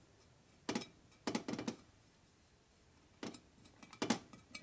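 About six light, irregular knocks and clicks from an aluminium engine cam cover being handled and shifted on a metal workbench.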